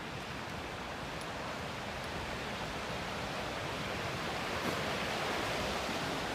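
Rushing mountain creek, white water tumbling over boulders, heard as a steady hiss of water that grows gradually louder.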